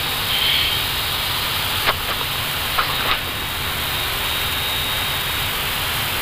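Steady rushing noise of airflow and air conditioning on an Airbus A320 flight deck in descent, with a few faint clicks about two and three seconds in.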